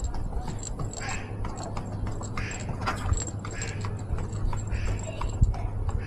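Short, harsh animal calls repeated at a steady pace, about one every second and a quarter, over a steady low rumble.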